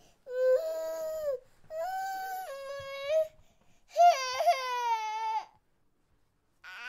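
A baby crying: three long wails, each a second or more, with short breaks for breath between them.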